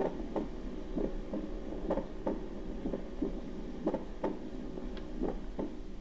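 Recorded heart sounds demonstrating a split first heart sound. The lub-dub beats come steadily at about one a second, and the first sound of each beat is split into two close components.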